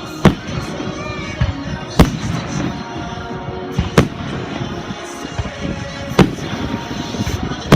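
Fireworks shells bursting, with a loud bang about every two seconds and a few smaller pops in between, over music playing in the background.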